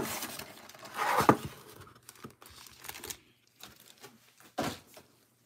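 Cardboard trading-card box and its wrapped card packs being handled: the cardboard insert slid out and the packs set down. A sharp tap right at the start, a louder crinkling scrape about a second in, then softer rustles and taps.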